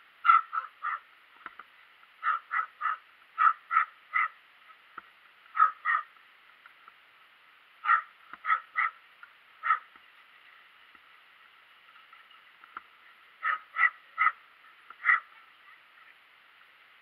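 Small dog barking in short, sharp yaps, in quick runs of two to four at a time, with a pause of a few seconds near the middle.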